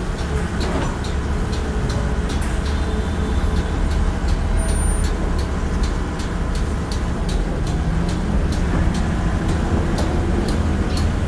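Heavy machine engine, likely an excavator's diesel, running steadily at a low rumble with light clicks about twice a second.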